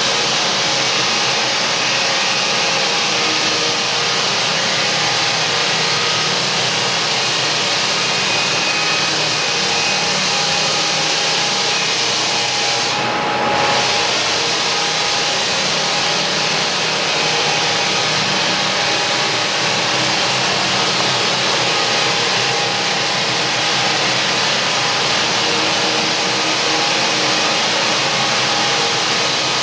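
Lägler Superhummel belt floor sander running steadily through the initial cut on an Australian Cypress floor, a loud, even hiss with a faint motor hum. The hiss dips briefly near the middle.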